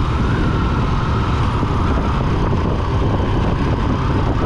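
Motorcycle running at road speed, with steady wind rush over the microphone.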